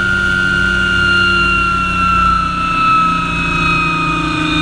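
MD500 helicopter's turboshaft engine running on the deck, heard from inside the cockpit: a high turbine whine slowly falling in pitch over a steady low hum.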